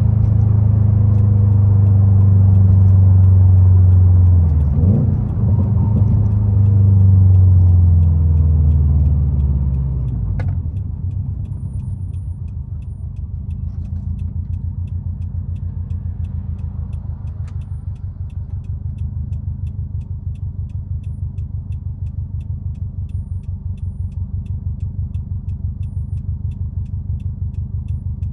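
2021 Subaru WRX STI's turbocharged 2.5-litre flat-four running through a Tomei aftermarket exhaust: loud under load, with a shift in engine pitch about five seconds in. About ten seconds in it drops back to a quieter, evenly pulsing low-rpm run.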